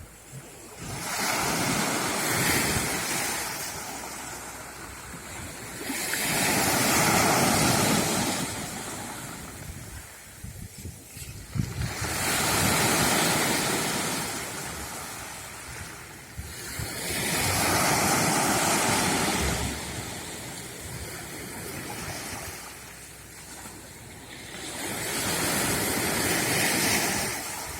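Black Sea surf: waves breaking and washing on the shore about every five to six seconds, each a swell of rushing noise that rises and dies away.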